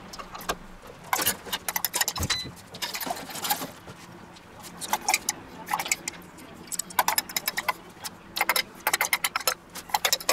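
Metal spoon clinking and scraping against a stainless steel bowl as a fried onion and bacon filling is scooped out, coming in several quick bursts of clicks.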